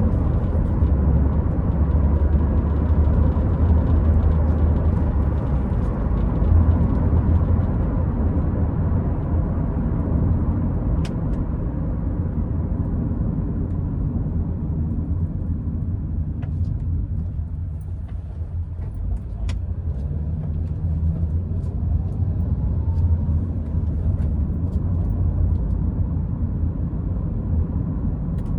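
A car being driven: a steady low engine and road rumble that eases off briefly about two-thirds of the way through, then picks up again with a faint rising tone. A few faint clicks sound over it.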